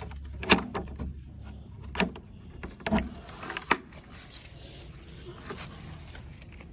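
Metal latch of a wooden fence gate being worked open, then the gate knocking as it swings: several sharp clicks and knocks in the first four seconds.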